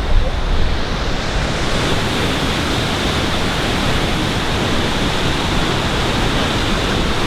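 Steady rush of water from a river or falls far below in a canyon. It gets brighter and hissier after a second or two, with some low rumble near the start.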